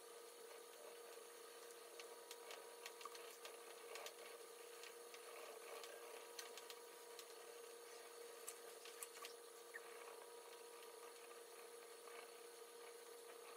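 Near silence: faint scratching of a wax crayon colouring on sketchbook paper, with scattered small ticks, over a faint steady hum.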